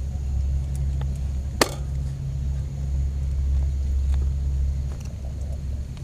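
Heavy rain drumming on a tent: a steady low rumble with scattered faint drop ticks, and one sharp tap about a second and a half in.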